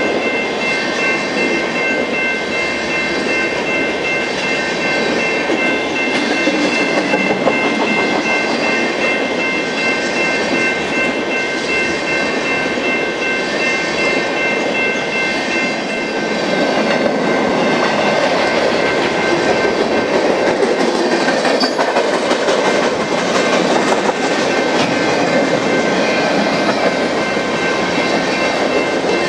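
Freight train cars rolling steadily past on the rails, a continuous rumble with wheel clatter and several thin, steady high tones ringing through it that fade out after about twenty seconds. It grows a little louder about halfway through.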